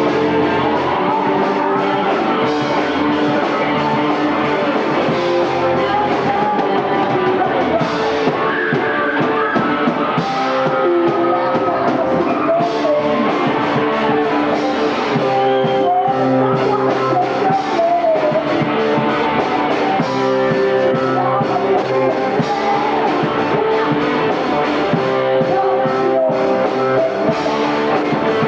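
Rock band playing live on stage: electric guitar over bass and drums, a continuous loud rock song.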